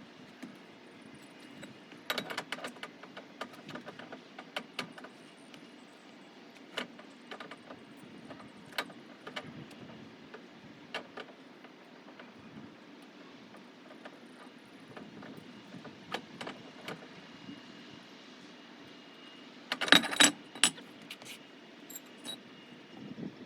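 Scattered metallic clinks and taps of hand tools and car parts being handled, over a low steady background hum. A louder burst of clanks and rattles comes near the end.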